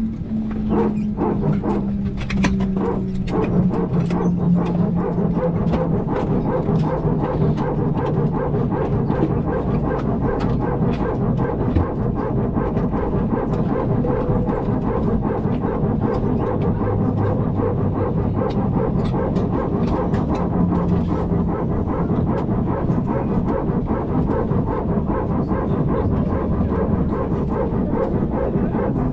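Airbus A319's hydraulic power transfer unit (PTU) running: the rapid, growling bark typical of the A320-family PTU, over a steady low hum, continuing without a break. It is the sign of the PTU pumping hydraulic pressure from one system to the other.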